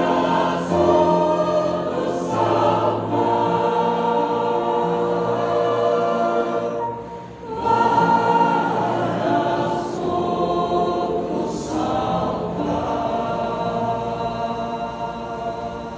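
A choir singing slow, sustained chords, with a brief break in the sound about seven seconds in.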